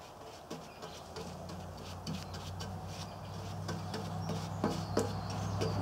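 A paintbrush dabbing and stroking paint onto the pitted steel lid of an ammo box in short, irregular strokes. Bird chirps sound behind it, and a low steady hum grows louder toward the end.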